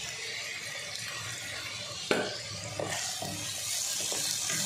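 Chopped onion, tomato and green chilli sizzling in hot oil in a pan while a spoon stirs the freshly salted masala, with a sharp knock of the spoon against the pan about two seconds in and a few lighter knocks after.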